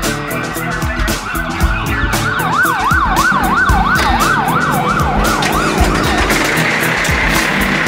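An emergency vehicle siren in a fast yelp, sweeping up and down about three times a second, swelling in a few seconds in and fading out after about six seconds, over background music with a steady beat. A louder steady hiss comes in near the end.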